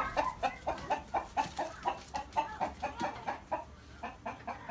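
Chickens clucking in a rapid run of short calls, about four or five a second, thinning out near the end.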